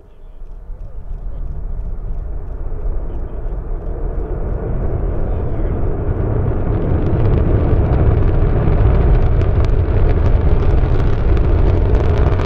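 Rocket roar of the Antares first stage's two AJ26 engines heard from a couple of miles away: a deep rumble that swells in the first few seconds, then holds loud, with crackling in the later part.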